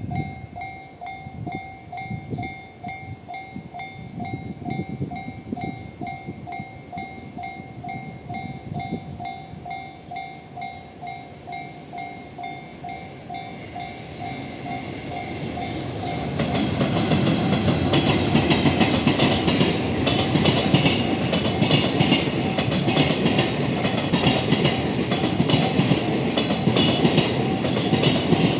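A railway level crossing's electronic warning bell pulses steadily over the rumble of a freight train. About 16 s in, the train noise rises sharply and a loud clatter of freight wheels over the rail joints takes over, drowning out the bell.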